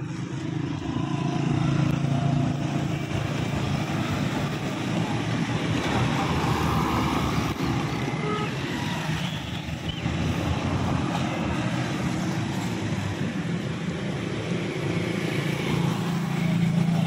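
Road traffic running steadily close by, cars and motorcycles with a continuous low engine drone. A motorcycle passes close and loudest near the end.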